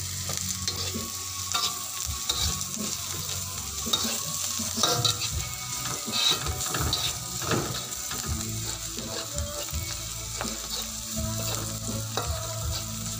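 Chopped onions sizzling in hot oil in a wok while a metal spatula stirs them, scraping and clinking against the pan again and again.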